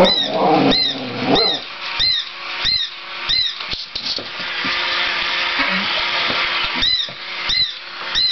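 Mechanical toy cat running: a high, arched squeak with a click repeats about every 0.6 s, drops out for a few seconds midway under a steady hiss, then starts again.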